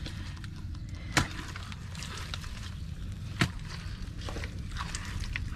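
Digging and groping in wet mangrove mud for a mud crab: scattered small knocks and squelches over a steady low rumble, with two sharper knocks, one about a second in and one about three and a half seconds in.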